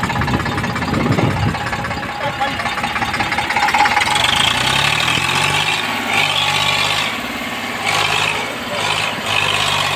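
Eicher 548 tractor's diesel engine running hard under load while the tractor is stuck in deep mud. The sound is rough and noisy at first, then settles into a steady engine note about halfway through.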